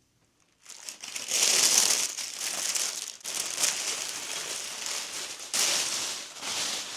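Paper packaging crinkling and rustling as it is handled, in two louder spells, the first starting about a second in and the second near the end.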